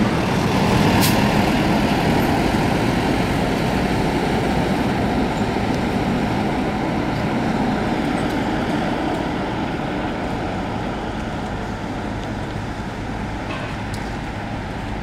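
Road traffic of heavy trucks passing: a steady rumble of engines and tyres that slowly grows quieter. A sharp click about a second in.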